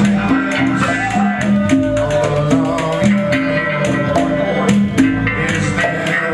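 Live blues-rock band playing: guitars and bass repeat a short riff about twice a second over congas and hand percussion, with a long held melody note above.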